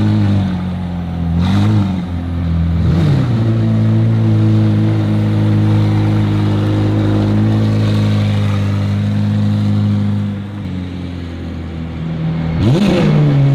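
High-performance car engine revved in two quick blips, then holding a steady raised idle. It drops to a lower idle about ten seconds in and is blipped once more near the end.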